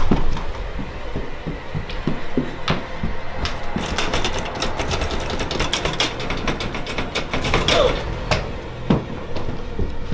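Many quick knocks and thuds over a steady low rumble, with a brief rising sound about eight seconds in.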